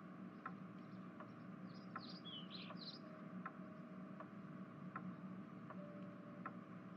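Faint background ambience: a steady ticking about twice a second, with a few short bird chirps about two to three seconds in.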